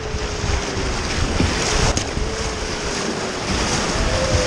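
Whitewater rapids rushing and splashing against the side of a wooden river boat, with wind buffeting the microphone. The splashing grows heavier near the end.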